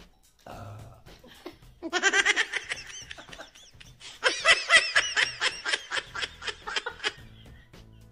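Hearty laughter in two long bouts of quick, repeated bursts, the first about two seconds in and the louder second about four seconds in.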